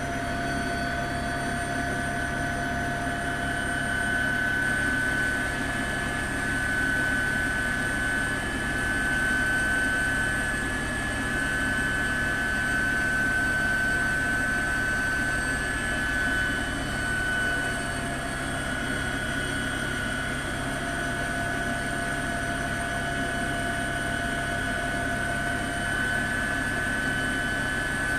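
Steady helicopter turbine and rotor noise heard from aboard the helicopter, a constant high whine over a rumble.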